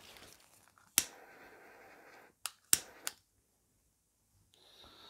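Sharp clicks of small parts being handled and turned on an opened MacBook Pro: one about a second in, then three close together around two and a half to three seconds.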